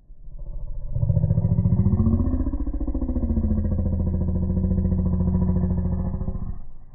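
An engine running with a fast, even pulsing hum. It builds over about a second, holds steady for about five seconds, then cuts off.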